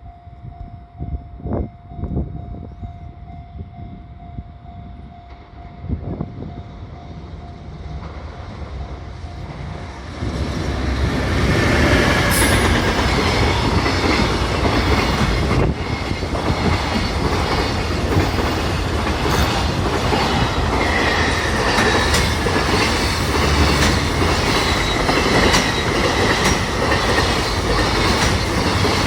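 Freight train hauled by an EF210 electric locomotive, first a slowly building rumble as it approaches. About ten seconds in it passes close by, loud and steady, with the clickety-clack of wagon wheels over rail joints and a few brief wheel squeals.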